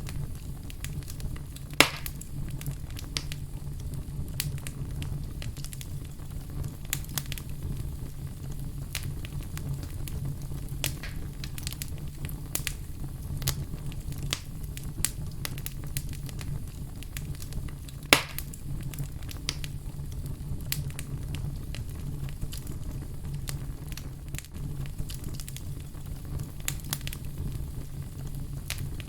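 Wood fire crackling in a fireplace: irregular snaps and pops over a steady low rumble, with two sharp, louder pops, one about two seconds in and another about eighteen seconds in.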